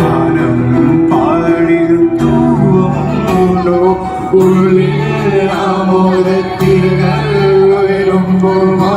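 A group of voices singing an Indian song live, accompanied by acoustic guitar, violin and harmonium, amplified through a stage PA.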